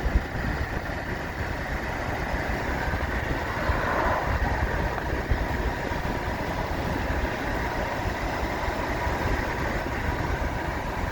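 Steady road and wind noise of a moving car, heaviest at the low end.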